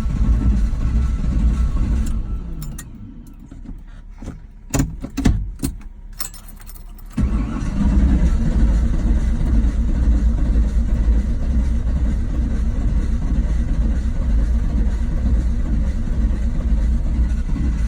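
Chevrolet 350 small-block V8 cranking on the starter without firing. The cranking stops about two seconds in, a few sharp clicks follow, and it starts again abruptly about seven seconds in. The engine was freshly rebuilt and now won't start; the owner is unsure whether oil pressure, the alternator or the carburettor is to blame.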